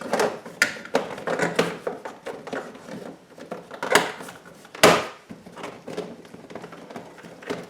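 Irregular clicks and knocks from handling a screwdriver and screws while fastening a truck's door panel back on, with two sharper knocks about four and five seconds in.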